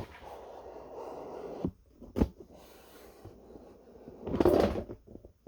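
Handling noise: a soft rustle, two sharp clicks about two seconds in, and a louder brief scrape near the end.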